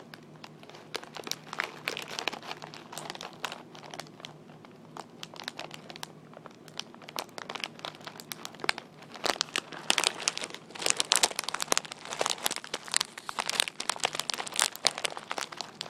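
Close-up crinkling and tapping on crinkly packaging or wrapping, a dense run of irregular crackles and ticks that gets busier and louder about two-thirds of the way through.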